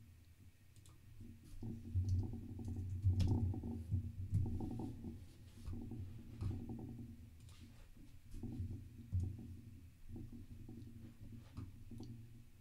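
Irregular computer keyboard keystrokes, scattered sharp clicks over an uneven low rumble.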